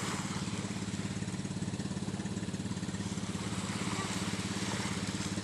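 A small engine running steadily at an even speed, with a fast, regular beat.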